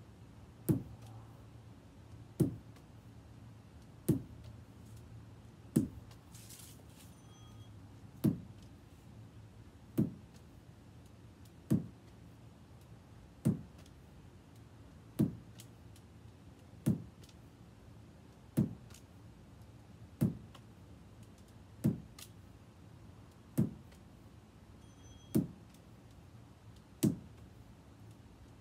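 A lacrosse ball thudding in a steady rhythm during a solo stick drill: one short, solid thud about every 1.7 seconds, sixteen in all, with one longer pause about a quarter of the way through.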